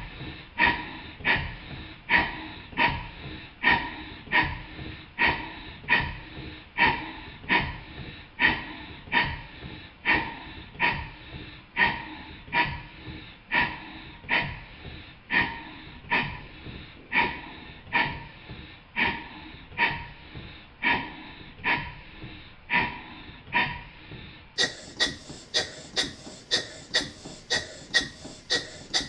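Stuart 5A model steam engine running slowly, its cylinder exhausting in regular puffs a little over one a second. Near the end the puffs quicken to about two a second.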